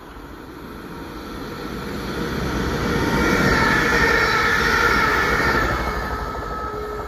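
ScotRail electric multiple unit passing through the station without stopping, its wheel and track noise building to a peak a few seconds in and then fading. A high whine sits over the rumble as it goes by.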